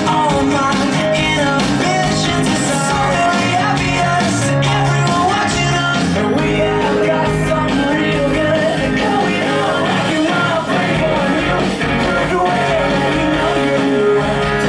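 Background music: a rock song with singing.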